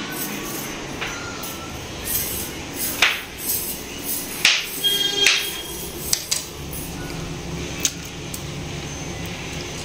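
Kitchen clatter of metal pots and utensils: a handful of sharp knocks and clinks, one of them ringing briefly about five seconds in.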